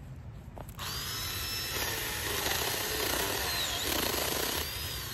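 JPOWTECH 21-volt cordless mini chainsaw starting up about a second in and running with a high whine, its pitch dipping as the chain cuts into a branch. It is released near the end and winds down with a falling whine.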